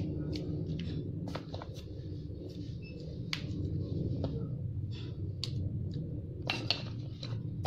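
A few light, scattered taps and clicks as red chillies are dropped one at a time into a stone mortar of chopped shallots and garlic, with a small cluster near the end, over a steady low background hum.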